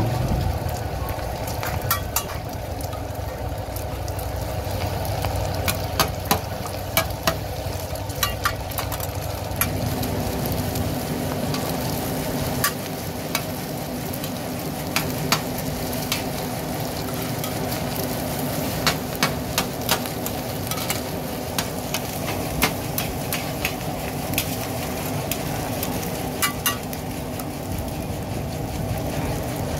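Mussel-and-egg omelette (hoi tod) sizzling steadily in oil on a giant flat metal pan. Metal spatulas scrape and clack against the pan many times as the food is turned.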